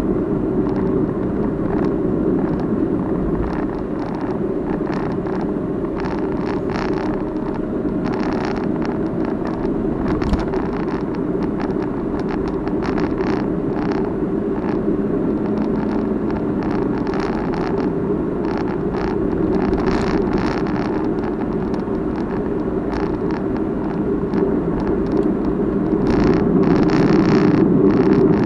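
Steady road and engine rumble inside a moving car, picked up by a dashboard-mounted Crosstour CT8500 dashcam. Over it runs an irregular clattering rattle from the camera's own body, a fault of this defective unit.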